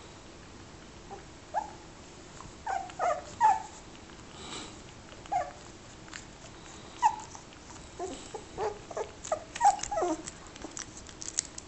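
Fox terrier puppy whimpering in short, high squeaks, a few at a time, coming faster in the last few seconds, with a few light clicks near the end.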